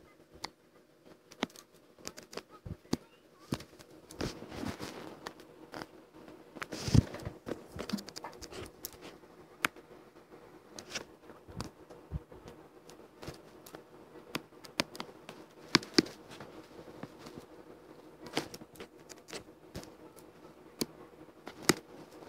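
Irregular light clicks and short scratches of drawing work, pen or stylus strokes and taps, over a faint steady hum.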